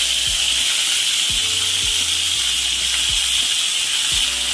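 Chopped mixed vegetables (yardlong beans, brinjal, pumpkin and gourds) sizzling steadily as they fry in hot oil in a steel kadai, with a few dull knocks.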